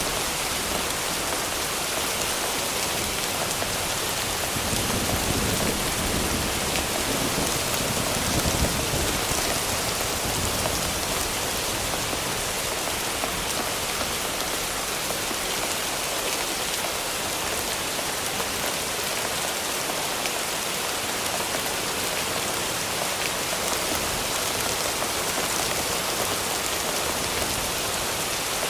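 Steady heavy rain falling, an even hiss of many drops. A soft low rumble swells about five seconds in and fades out by about ten seconds.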